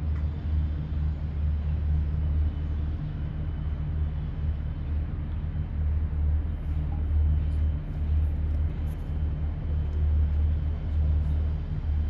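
A steady low rumble under a faint hiss, wavering in strength, with no distinct events.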